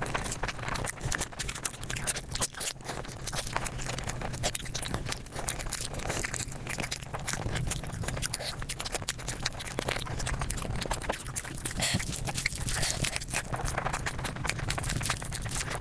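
Close-miked eating sounds sped up to five times normal speed: a dense, rapid run of chewing, crunching and clicking with a steady low hum underneath.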